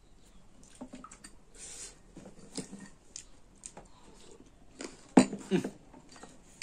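Close-up chewing and mouth sounds of someone eating wild olive (heiyai) fruit, with many small clicks and crackles. There is a brief sound from the voice about five seconds in.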